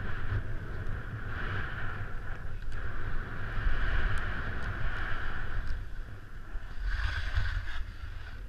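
Wind buffeting a GoPro's microphone at skiing speed, a steady low rumble, with the skis hissing and scraping over packed snow, swelling and fading about three times.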